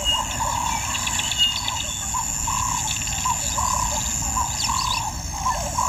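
A steady series of short, repeated animal calls, about two to three a second, with fainter high chirps over steady outdoor background noise.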